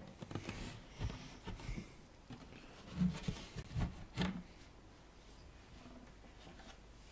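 Scattered rustling and clicks, then a few soft knocks about three to four seconds in, as the back panel of a wooden speaker cabinet is lifted off.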